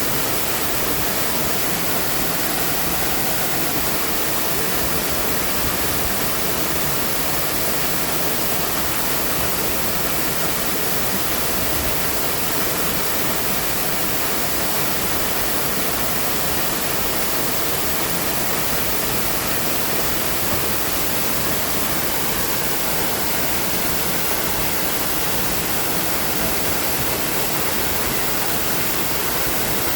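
Waterfall: a steady, unbroken rush of falling water, even and unchanging throughout, with a bright hiss.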